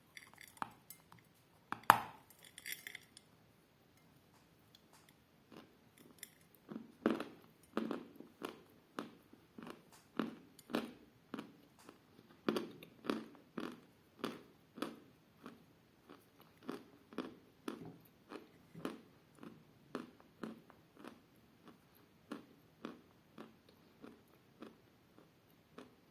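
Mouth-close crunching of edible chalk: a sharp crack about two seconds in, then steady chewing at about two chews a second.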